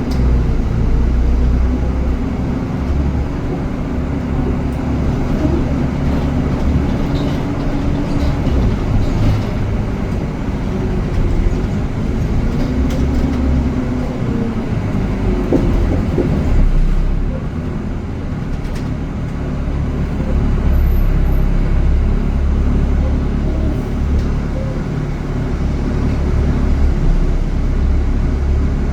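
Steady low rumble of a heavy vehicle running, with an engine note that rises and falls a little.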